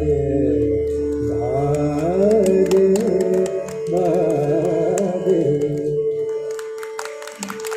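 Male voice singing a wordless, richly ornamented classical phrase with quick wavering turns, over a steady drone. The voice stops about six seconds in, leaving the drone and a few light taps near the end.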